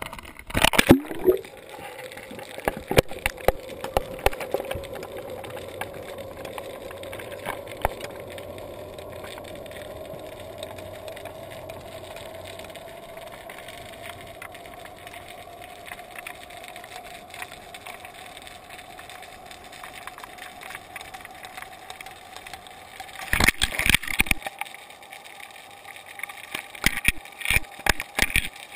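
Muffled underwater sound heard through a GoPro's waterproof housing as the camera hangs below the surface: a steady low hum with a faint tone slowly rising in pitch. Knocks and rattles on the housing sound at the start and again in clusters near the end.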